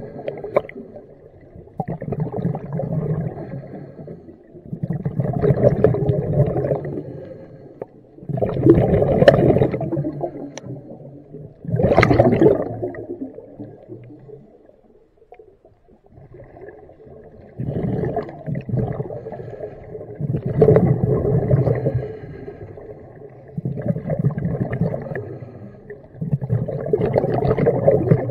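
Muffled underwater sound of water moving around a submerged camera, swelling and fading about every three seconds, with a quieter lull about halfway through.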